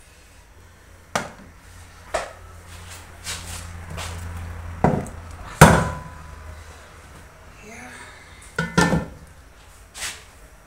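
Irregular knocks and clatter of kitchen pots, pans and utensils, about seven in all, the loudest a little past halfway.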